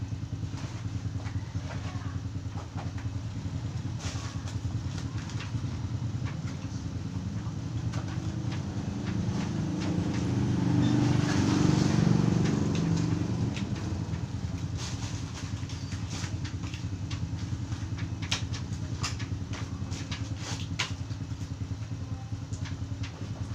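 A steady low engine hum that swells louder for a few seconds near the middle, as of a motor vehicle going past. Light clicks and rustles come from packaged spare parts being handled.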